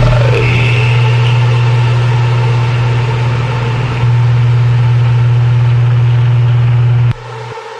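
A steady low electronic drone in a home-produced music track, with fainter held tones above it. It cuts off suddenly about seven seconds in, leaving a quieter hum.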